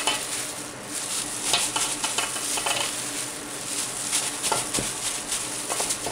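Plastic-gloved hands scooping chili-coated radish cubes for kkakdugi around a stainless steel bowl: a continuous rustling with irregular small clicks and taps against the bowl.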